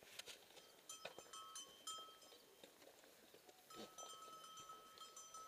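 Small bells on a passing herd of goats ringing faintly and unevenly, with a few light taps of hooves or trekking-pole tips.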